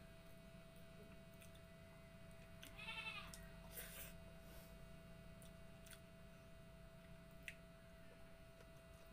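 Very quiet eating sounds: faint clicks and smacks as mussels are eaten by hand, over a steady faint hum. About three seconds in, a brief animal call rises above them.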